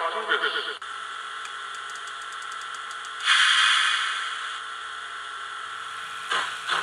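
The tail of background music stops under a second in, giving way to the steady hiss of a standing steam locomotive played by the sound decoder of a Fleischmann BR 86 model tank locomotive through its built-in loudspeaker. About three seconds in, a louder burst of escaping steam rises and fades away over about a second.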